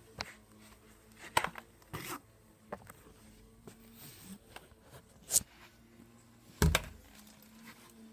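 A pet knocking her ball about: irregular sharp knocks and scrapes, with a heavier thump about two-thirds of the way through.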